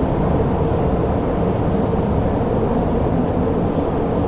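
MTR Tsuen Wan Line M-train pulling out of the platform: a steady rumble of wheels and traction motors heard through the platform screen doors.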